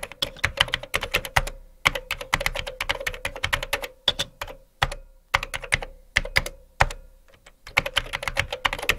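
Keyboard-typing sound effect: rapid runs of clicking keystrokes broken by short pauses, as on-screen text is typed out. A faint steady tone sits underneath.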